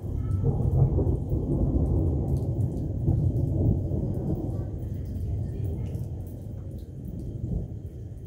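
A thunderclap rumbling, starting suddenly, strongest in the first few seconds, then slowly dying away, with rain falling.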